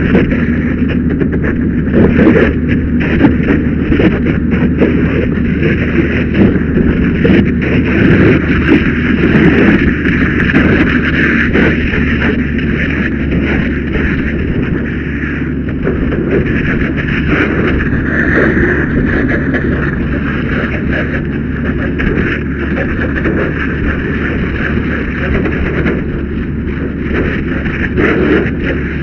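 Fire hose stream spraying water onto a burning pickup truck, a steady hiss over a continuous low rumble with a faint steady hum.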